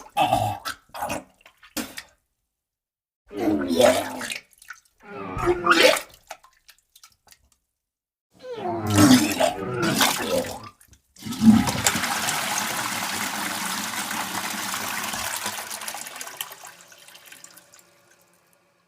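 Several short, separate bursts of sound, then a long rush of water starting about eleven seconds in that fades away over about six seconds.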